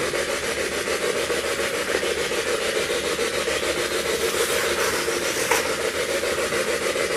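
Spirit box sweeping through radio stations: a steady rush of radio static with a fast, fine flutter, and a short crackle about five and a half seconds in.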